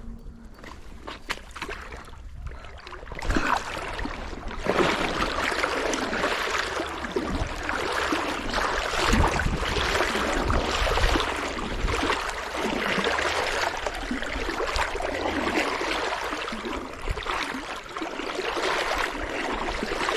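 Stream water rushing and gurgling close by, quieter at first and louder from about four and a half seconds in, with a few low bumps.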